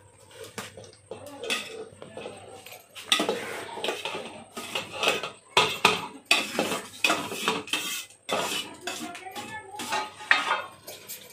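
A metal spoon scraping and clinking against a steel bowl as cooked rice is scooped out and layered into a steel pressure cooker: a run of irregular clinks and scrapes.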